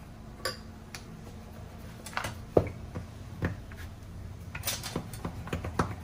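Wooden rolling pin rolling and knocking on a countertop while stuffed paratha dough is rolled out and pressed by hand: scattered soft knocks and taps, the sharpest about two and a half seconds in.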